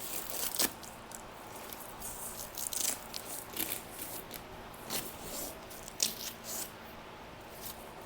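Irregular crinkling, rustling and scraping of gear being handled, with scattered sharp clicks, the sharpest about half a second in and at about six seconds.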